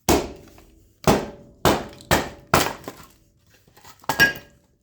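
Axe splitting dry oak kindling: five sharp chopping blows into the wood, half a second to a second apart, then a lighter knock with a short ring about four seconds in.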